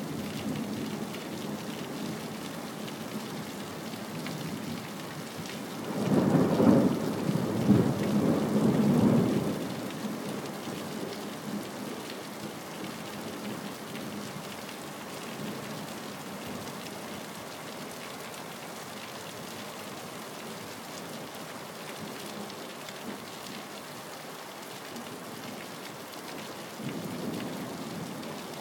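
Steady rain falling, with a loud rumble of thunder about six seconds in that lasts some three seconds, and thunder building again near the end.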